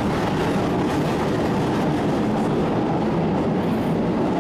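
Paris Métro train running, heard from inside the carriage: a steady, even noise of wheels on rail and the car in motion.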